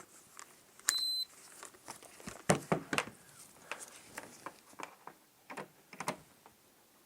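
A single short high-pitched electronic beep, under half a second long, from test gear checking a PC power supply, followed by scattered light clicks and taps of handling.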